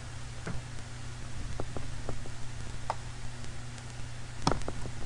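Scattered clicks of a computer mouse, with a louder cluster of clicks about four and a half seconds in, over a steady low hum.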